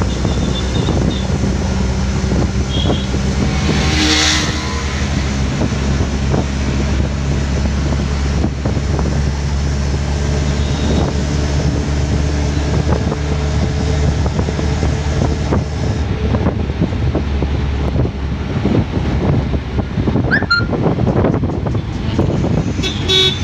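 Engine of a moving road vehicle running steadily, heard from on board, with wind buffeting the microphone. A brief rush of noise comes about four seconds in, and the engine note shifts about two-thirds of the way through.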